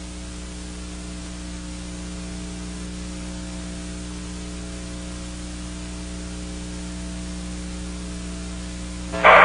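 Steady hiss with a low electrical hum: the background noise of a cockpit voice recorder playback between transmissions. A voice comes in right at the end.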